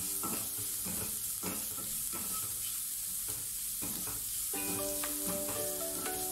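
Ginger, garlic and green chillies sizzling in hot gingelly (sesame) oil in a pan, stirred so the utensil scrapes the pan over and over under a steady sizzle, with background music.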